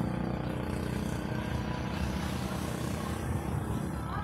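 A vehicle engine running steadily, a low even hum under a hiss.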